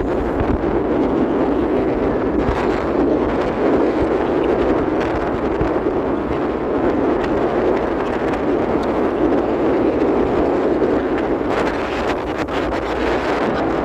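Steady rushing noise aboard a moving tour boat: wind buffeting the microphone over the boat's running noise, unchanging throughout.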